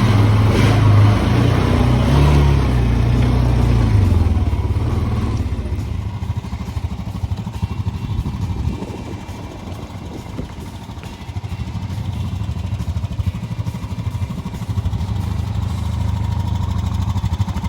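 Honda Rancher 420 ATV's single-cylinder four-stroke engine running. It is louder with a shifting pitch for the first few seconds, settles quieter in the middle, then builds up again near the end.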